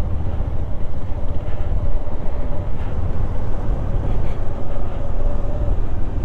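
Bajaj Dominar 400 motorcycle's single-cylinder engine running steadily, a continuous low rumble, as the bike rides down a rough, rocky track.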